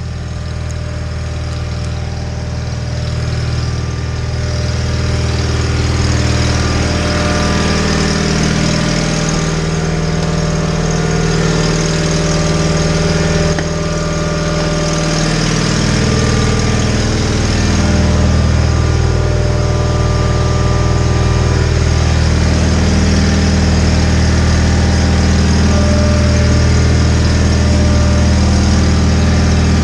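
John Deere 318 garden tractor's two-cylinder Onan engine running steadily. It grows louder over the first few seconds, and its note dips and recovers several times in the middle as the load changes.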